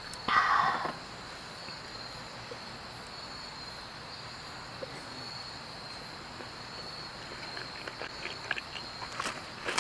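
Crickets chirping steadily in a high, even drone. About half a second in there is a brief, louder rustling or clattering sound, and a few faint clicks near the end.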